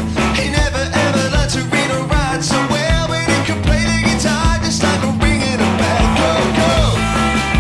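A rock band playing, a man singing lead over electric guitar and a steady beat.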